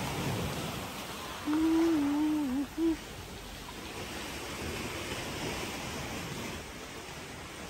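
Steady rush of sea surf and wind. About one and a half seconds in, a wavering pitched hum lasts just over a second, followed by a brief second note.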